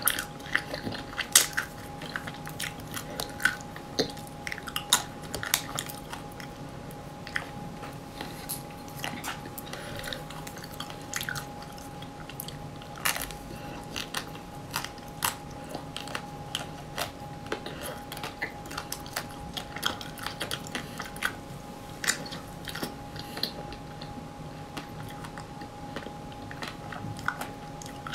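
Close-up biting and chewing of coated ice cream bars: irregular small crackles and crunches of the hard shell breaking, between softer chewing. A faint steady hum sits underneath.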